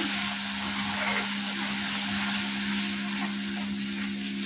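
Tomato-and-spice gravy sizzling steadily in a kadai on a high gas flame as a wooden spoon stirs it, over a steady low hum.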